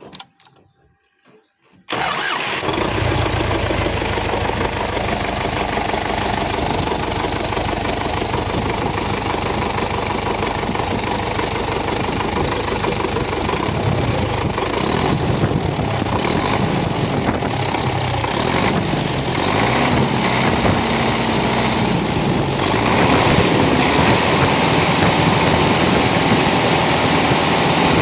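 MTZ-80 tractor's four-cylinder D-240 diesel engine running steadily, coming in abruptly about two seconds in and getting a little louder near the end. It is running after repairs, with the faulty check valve fixed that had made it smoke blue and backfire.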